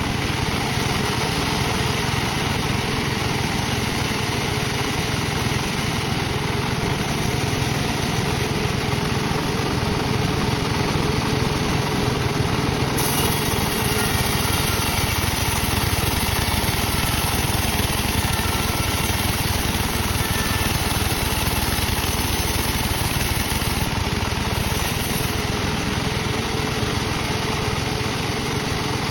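Sawmill machinery running steadily: the engine-driven saw is working through teak, sawing it into rafter stock.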